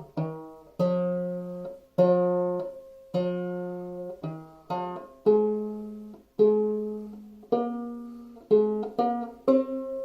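Five-string banjo played clawhammer style in open G minor tuning (gDGBbD), picking out a slow melody one plucked note at a time, each note ringing and fading. The notes come quicker near the end.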